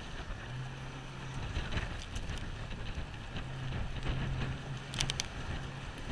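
Wind buffeting the microphone and choppy water rushing and splashing against the sides of a small boat under way. A low steady hum comes and goes, and a few sharp knocks sound about five seconds in.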